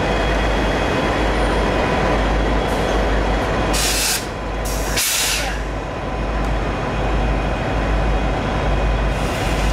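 Norfolk Southern SD40E diesel locomotive running and rolling past with a steady, heavy rumble. Two short hisses of air come about four and five seconds in.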